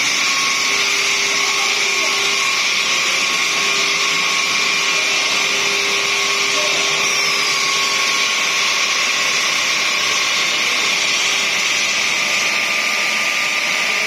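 Granite curbstone chamfering machine running with water: a loud, steady, high whine and hiss from its motors and grinding heads, with a faint steady hum beneath.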